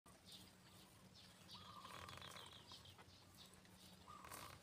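Faint birds chirping outdoors, short calls repeated several times, over a low steady hum.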